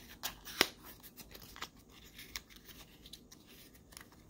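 Fingers working at a small cardboard product box to get it open: a string of light clicks and scrapes of card, the sharpest about half a second in.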